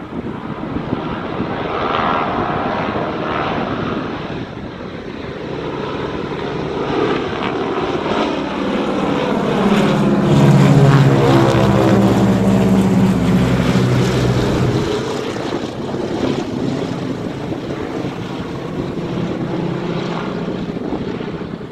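Ford Trimotor's three radial engines and propellers at takeoff power, climbing out. The sound grows louder as the plane passes overhead about halfway through, its pitch drops as it goes by, and it then fades as it flies away.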